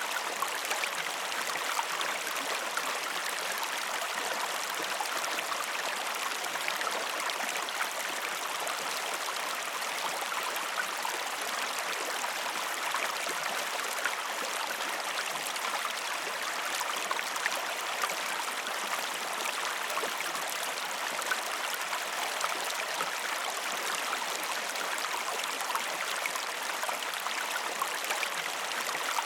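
Waterfall: water falling and rushing steadily, with a fine splashing and bubbling texture and no lulls.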